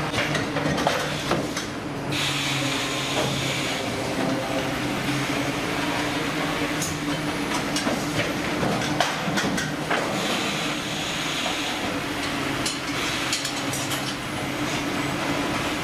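Steady engine and machinery drone aboard a fishing vessel, with scattered knocks and clatter.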